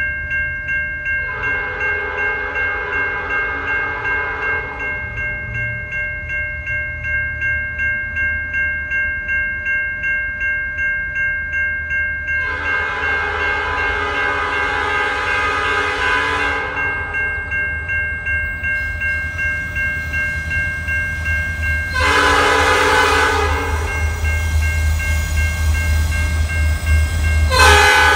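Norfolk Southern SD40-2 locomotive's Nathan P5 air horn sounding the grade-crossing signal: two long blasts, a short one, and a final long blast starting near the end. Under it a crossing bell rings steadily, and the locomotive's diesel engine rumbles louder as it draws near.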